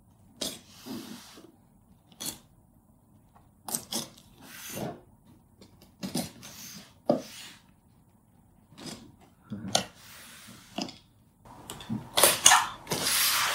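Box cutter scoring and slicing the packing tape on a cardboard shipping box: short separate scrapes and clicks of the blade on tape and cardboard. A louder, longer stretch of tape and cardboard rustle comes near the end.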